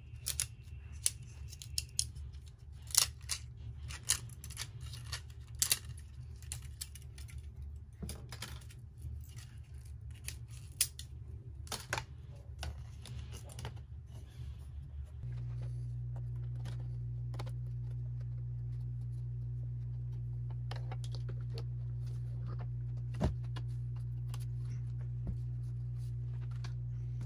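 Hands handling stiff plastic parts: a string of sharp clicks, taps and rattles as a white plastic strip is flexed and set down on the sign's backing board. About halfway through, a steady low hum starts abruptly and carries on with only a few scattered clicks over it.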